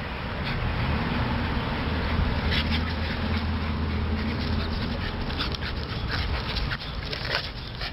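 A West Highland white terrier puppy and a Norwich terrier puppy play-fighting: a low, drawn-out growl through the middle few seconds, with scuffling and short clicks throughout.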